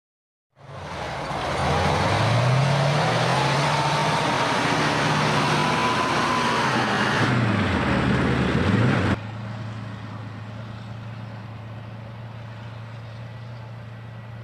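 Tracked Msta-S self-propelled howitzer's V-84 diesel engine running hard, its pitch rising and falling, with a high whine above it. About nine seconds in the sound drops suddenly to a quieter, steady engine note.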